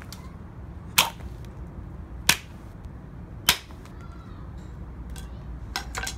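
A knife chopping down onto pumpkin chunks on concrete: three sharp strikes about a second and a quarter apart, then a few lighter clicks near the end.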